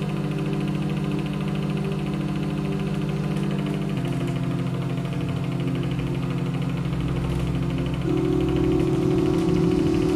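Low droning tones held steady, with a fine pulsing texture; the pitch of the drone shifts abruptly about four seconds in and again near eight seconds, when it gets a little louder.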